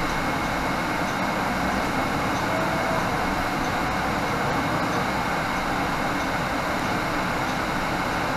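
Inside a 2018 Nova Bus LFS diesel city bus under way: steady engine, drivetrain and road noise, with a faint high whine held at one pitch.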